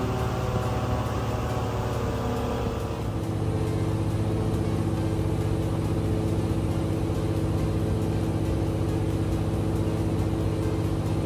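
An engine running steadily, its sound shifting about three seconds in and then holding an even drone.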